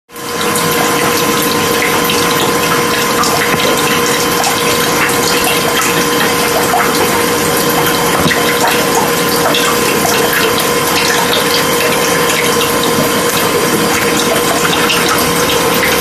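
Water bubbling and rushing steadily over a constant pump hum, with many small pops.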